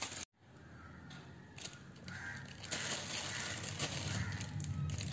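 Faint rustling and scraping as refined flour (maida) is spooned into a steel bowl of jackfruit batter mix, after a brief dropout a moment in.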